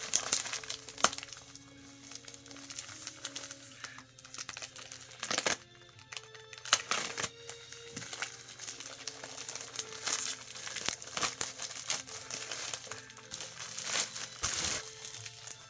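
Packaging crinkling and rustling as it is opened and handled, with several sharp crackles and ticks, over soft background music with held notes.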